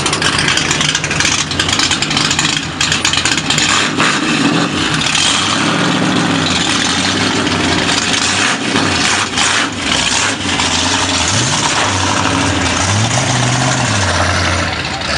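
Chevrolet Corvair engine running at low speed as the car creeps off, its pitch rising and falling with throttle blips in the second half.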